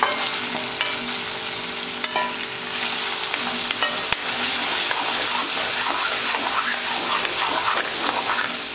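Chopped tomato frying in hot oil in a kadhai, sizzling steadily, while a steel spatula stirs it with scraping and a few sharp taps against the pan.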